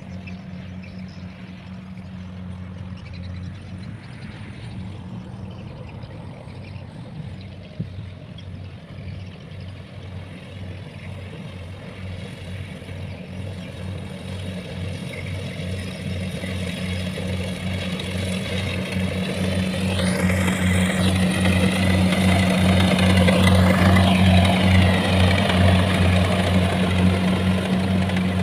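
Rice combine harvester's diesel engine running under load while it cuts and threshes rice, growing steadily louder as the machine comes closer. In the last third a broad rushing noise from the cutting and threshing joins the engine.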